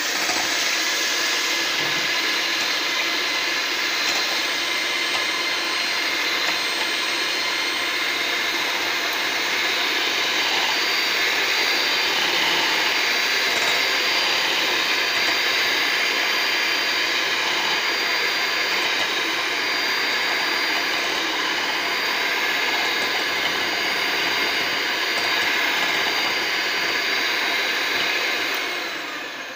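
Electric hand mixer running steadily at one speed, its beaters whisking raw eggs to a froth in a glass bowl. It winds down and stops near the end.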